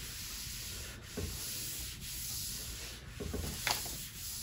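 Cloth rag wiped over a wooden tabletop, a steady rubbing, mopping up spilled milk; a few light knocks about a second in and again past three seconds.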